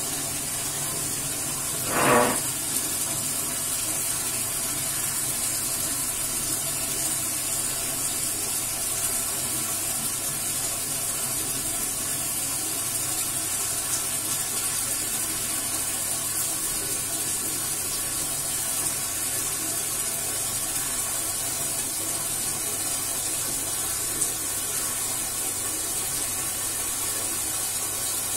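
Steady hiss of running water, with one short bump about two seconds in.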